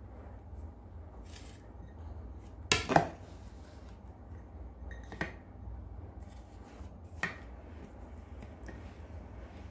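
Dishes being handled by hand during a meal: a few sharp clinks against a plate and glass bowl, the loudest a close pair about three seconds in, with single clinks near five and seven seconds, over a low steady hum.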